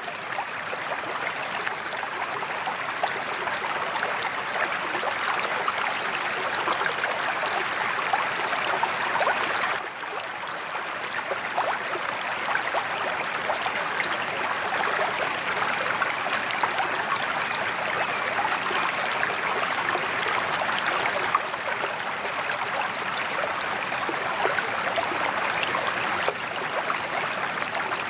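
Steady splashing of water pouring from a sheet-waterfall spillway into a koi pond.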